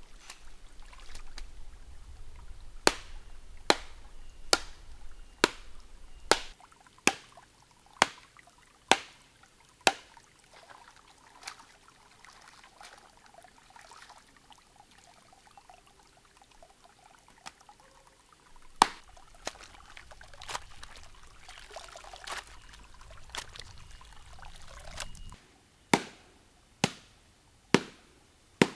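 Sharp, hard knocks at a steady pace of about one a second, as a bundle of plant stems is beaten on a streambed rock, with pauses between runs of blows. In between, water splashes and trickles as the bundle is swished in the shallow stream to wash its crushed sap into the water.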